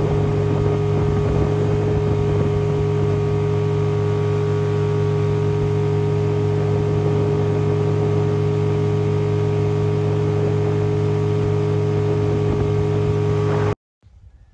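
Outboard motor on a flats skiff running steadily at speed, with the rush of water off the hull. The sound cuts off suddenly near the end.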